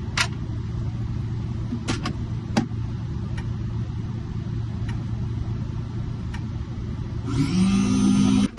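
Key-cutting machine running with a steady hum while it cuts the second side of a Ford flip-key blade, with a few sharp clicks. Near the end it gives a louder, rising whir, then cuts off suddenly as the cut finishes.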